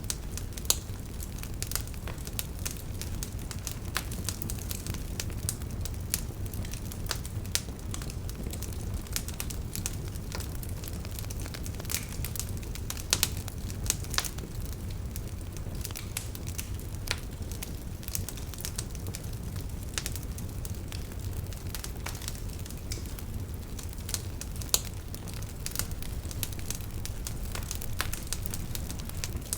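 Campfire burning: a steady low rumble of flame with frequent irregular crackles and sharp pops.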